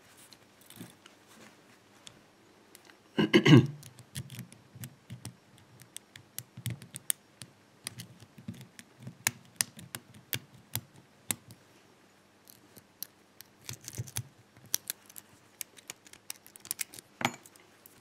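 Lock pick and tension wrench working the pins of an EVVA five-pin euro cylinder: many small, irregular metallic clicks and scrapes, with a louder rattle about three seconds in and a sharper click near the end.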